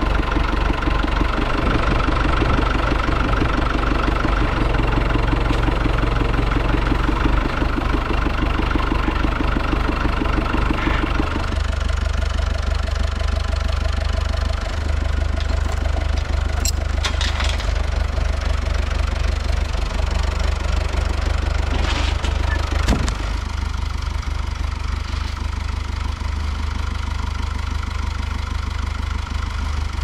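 Tractor engine running steadily, busier and louder at first, then settling to a lower, steadier idle about eleven seconds in. A few short knocks come around the middle, as the chain-hung timber platform is handled by the loader.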